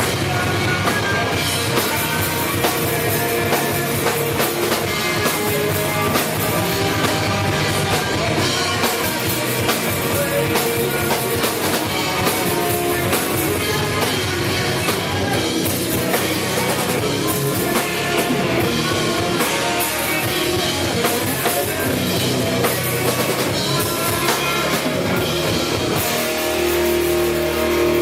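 Rock band playing, with a drum kit and guitars. Near the end the sound changes to held, sustained notes.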